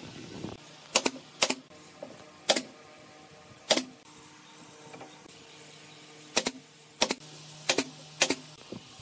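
Pneumatic nail gun firing nails into pallet-wood slats: about eight sharp shots at uneven intervals, two close together a second in and four close together in the last few seconds.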